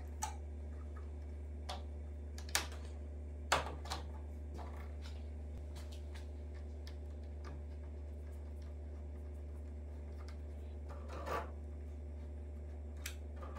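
Scattered small clicks and knocks of a toothed drive belt being worked by hand into a plastic belt clamp at the end of a CNC rail, the sharpest about three and a half seconds in and a softer one near the end, over a steady low hum.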